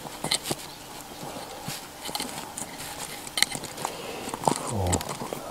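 Small irregular clicks and scrapes of fingers turning the threaded adjusting rod into a car distributor's vacuum advance unit, with a short low hum near the end.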